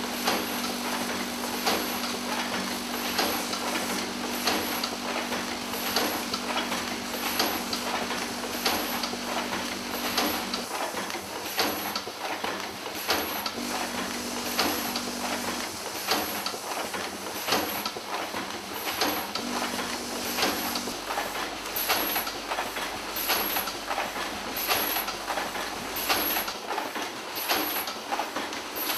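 Craft Inc automatic easel hinge machine running through its repeating cycle: clicks and clacks with a short high hiss about every second and a half. A steady hum underneath stops about ten seconds in and comes back twice briefly.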